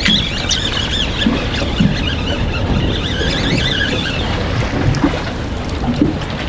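Strong wind buffeting an anchored small fishing boat, with a steady rumble throughout. A high, wavering squeal runs through the first four seconds or so, then stops.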